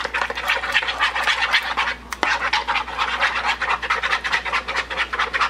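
A fork whisking a thick mayonnaise dressing in a bowl: quick, rhythmic wet scraping strokes, several a second, with a brief pause about two seconds in.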